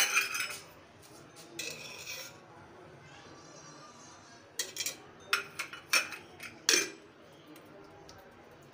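Metal kitchenware, including a lidded stainless-steel can, clinking and knocking as it is handled, in several short bunches of clinks.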